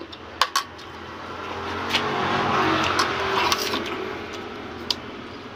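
A vehicle passing by, its noise swelling to a peak about three seconds in and then fading away. Light clinks of a spoon and fork against a plate sound a few times over it.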